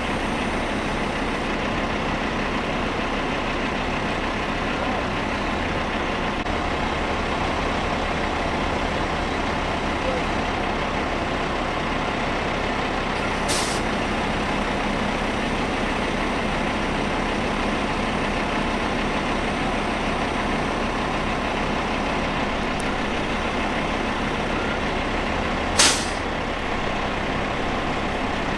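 Heavy diesel engine running steadily, with two short hisses of air released from a truck's air brakes, about halfway through and again near the end, the second one louder.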